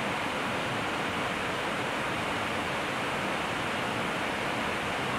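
Steady, even rushing noise on the flight deck of an Airbus A321 in cruise flight.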